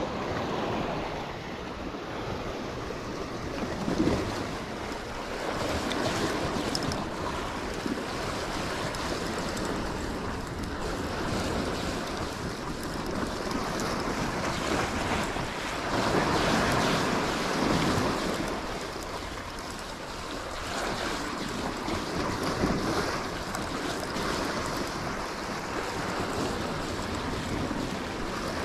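Sea waves washing and breaking against the rocky shoreline, swelling and easing several times, with wind buffeting the microphone.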